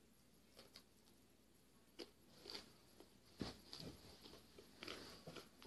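Faint chewing and crunching of a s'more, a marshmallow and chocolate on a cracker, in a string of irregular short crunches.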